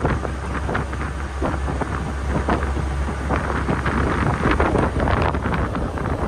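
Wind buffeting the phone's microphone from riding in an open Willys jeep, over the jeep's low engine rumble, with frequent short knocks and rattles from the ride.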